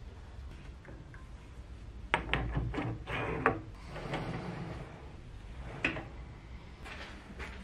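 Aluminium die holder being handled and fitted on a lathe's tailstock quill: a cluster of metal clicks and knocks about two seconds in, a short sliding rub, then two single clicks.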